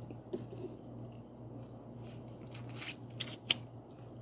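Light crackling and small clicks of food being handled with the fingers, with a few sharper clicks about three seconds in, over a low steady hum.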